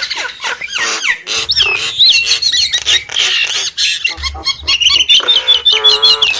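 Nias hill myna calling in a rapid, varied stream of loud whistles, clicks and squawks, with a harsh buzzing call near the end and a quick run of repeated short high notes.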